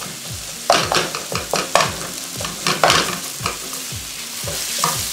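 A spatula scraping and stirring onion-tomato masala with green chillies in a non-stick frying pan, several quick strokes over a constant frying sizzle. The strokes thin out near the end, leaving mostly the steady sizzle.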